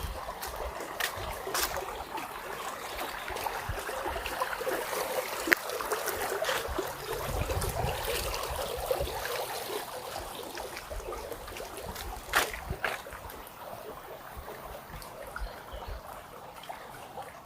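A shallow stream trickling and gurgling over rocks, steady and moderately loud, easing off somewhat near the end. A few sharp clicks stand out over the water, the loudest about five seconds in and again about twelve seconds in.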